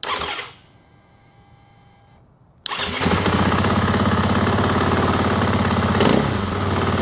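Fuel-injected KTM dirt bike: a faint steady whine of the fuel pump priming, then, about two and a half seconds in, the engine starts suddenly on the electric starter and runs steadily at idle.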